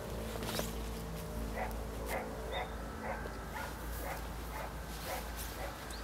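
A dog barking repeatedly, about two short barks a second, for a few seconds.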